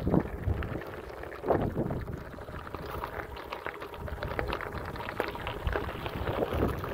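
Bicycle tyres rolling and crunching over a loose gravel path, with irregular crackling and a few louder bumps, and wind rumbling on the microphone.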